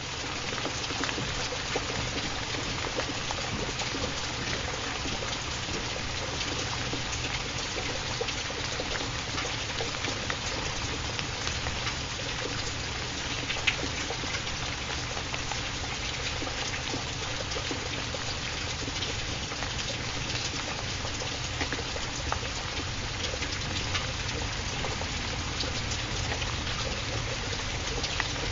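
Steady water sound, an even rushing wash with faint scattered ticks, played as a continuous ambient background track.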